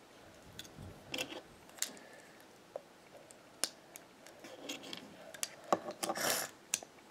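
Small plastic Lego pieces being handled and pressed together: scattered light clicks, with a short rustle about six seconds in.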